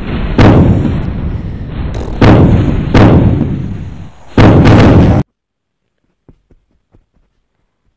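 Four loud, distorted booms, each dying away, over a constant heavy rumble; the sound cuts off abruptly about five seconds in, and a few faint clicks follow.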